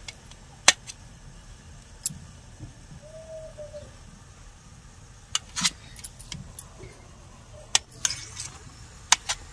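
Small knife clicking against a stainless-steel plate while soft, peeled, boiled taro corms (arbi) are sliced on it: irregular sharp clinks, several in quick succession toward the end.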